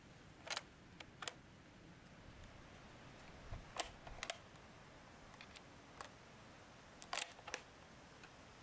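A scattered series of short, sharp mechanical clicks, some single and some in quick pairs, about ten in all.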